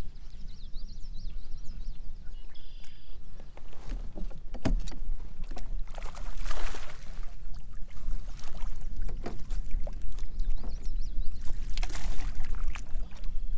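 Water lapping and splashing against the hull of an Old Town Topwater PDL fishing kayak, over a steady low rumble, with a few light knocks on the boat.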